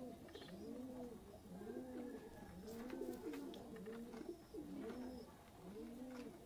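Domestic pigeons cooing: one low coo after another, each rising and then falling in pitch.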